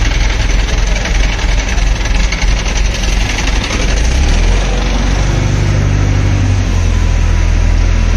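Heavy mobile crane's engine running loudly, first at a low idle, then revving up about halfway through and holding the higher speed.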